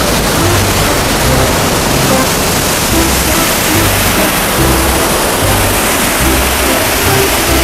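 Rushing river water, a loud steady hiss, with background music carrying short low bass notes underneath.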